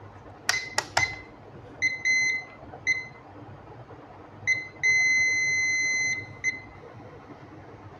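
Digital multimeter beeping: three quick clicks of its rotary dial, each with a short beep, about half a second in, then several short beeps and one steady beep of over a second near the middle as the probe touches points on the laptop motherboard.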